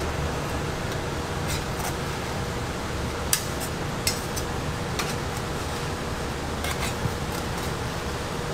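A metal knife cutting through toasted sandwiches, its blade clicking sharply against a steel griddle a few times, over a steady background hum.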